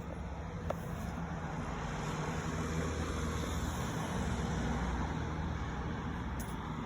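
Road vehicle running steadily in traffic, a low engine hum under a broad rush of road noise.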